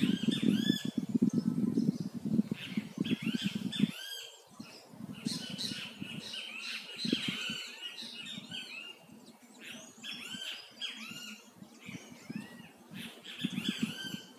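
Small birds chirping in quick, repeated arching notes, many overlapping. Under them a low rumble is loud for about the first four seconds, then drops away to a weaker, patchy level.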